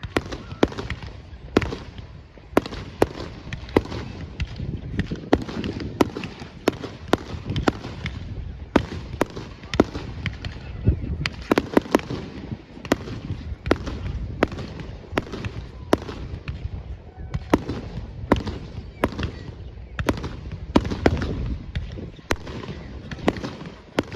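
Fireworks display: shells bursting in quick, irregular succession, sharp bangs about one or two a second over a steady low rumble.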